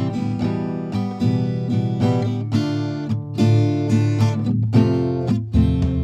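Background music: an acoustic guitar playing picked and strummed chords, each chord ringing out briefly before the next.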